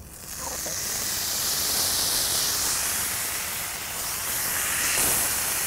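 Two strips of thin-sliced bacon sizzling on a hot flat-top griddle. The sizzle starts as they are laid on the steel and builds over the first second, then holds steady.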